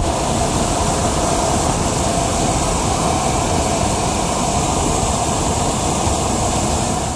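Propane burner of a hot air balloon firing, a loud steady rushing noise with a deep rumble under it.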